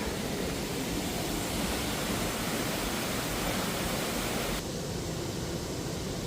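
Waterfall rushing steadily. About four and a half seconds in the sound changes abruptly, turning duller and a little quieter.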